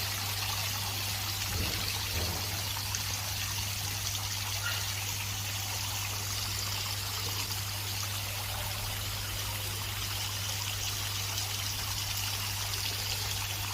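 Water trickling and splashing steadily down a decorative garden waterfall, with a steady low hum underneath.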